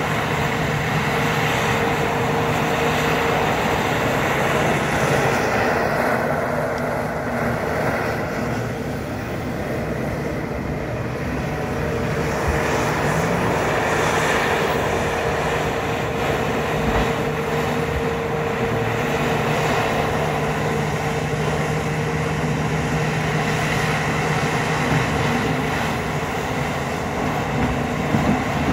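Caterpillar 352 hydraulic excavator working a dirt slope, its diesel engine running steadily. The engine note eases for a few seconds about a third of the way in.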